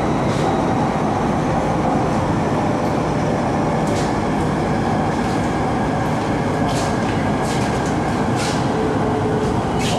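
Steady running noise inside a Bangkok MRT Purple Line car, the Japanese-built electric train cruising along its elevated track, with a few light clicks scattered through it.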